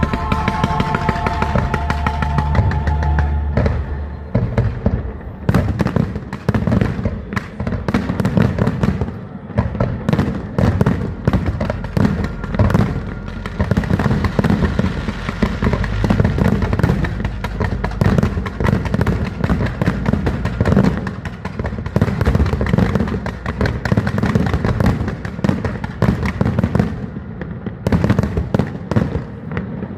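Aerial fireworks going off in rapid succession, a dense run of sharp bangs and crackles several times a second, over a music soundtrack that is clearest in the first few seconds.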